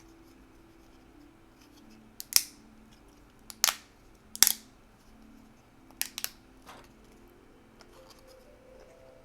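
Six or so sharp plastic clicks and snaps, bunched in the middle, as small PLA 3D-printed parts are handled and worked free of their print raft.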